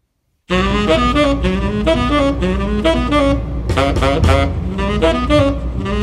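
Jazz recording of saxophone and drums, the saxophone playing a moving melody line over a steady drum pulse; it begins suddenly about half a second in.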